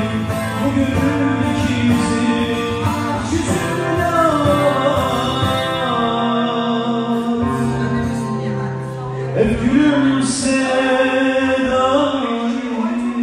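Live Turkish folk music: a man singing long, sliding held notes over saz (bağlama) and guitar accompaniment.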